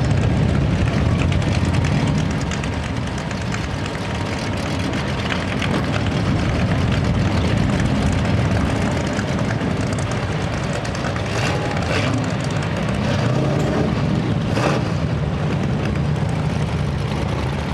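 Steady drone of a propeller-driven aircraft's engine, mixed with low rumble.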